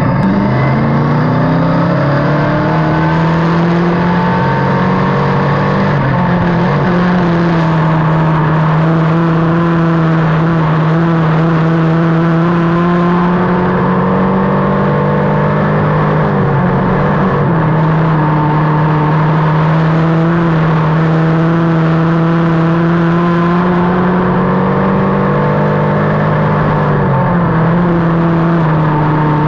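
Dirt-track race car engine at racing speed, heard loud from inside the cockpit. Its pitch climbs in the first couple of seconds, then holds high and drops briefly about every ten seconds, three times, as the car lifts for the turns and gets back on the throttle.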